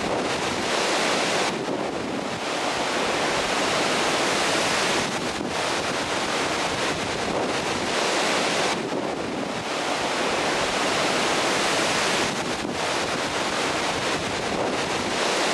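Storm-driven surf breaking on the shore, with strong wind hitting the microphone in a dense, steady rush that eases briefly a couple of times.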